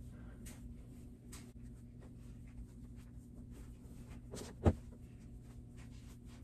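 Faint rustling of polyester fiberfill stuffing being pulled apart and pushed into a shirt, over a steady low hum, with a single thump about two-thirds of the way through.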